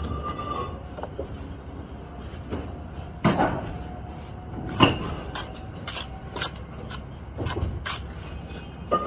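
Scattered knocks and scrapes of hand work at a brick wall, with the loudest strokes about three and five seconds in and several more a few seconds later.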